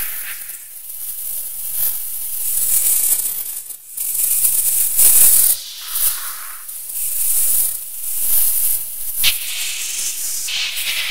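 Electroacoustic tape music: hissing, spray-like noise that swells and fades in waves, mostly high-pitched, with a sharp click a little after nine seconds.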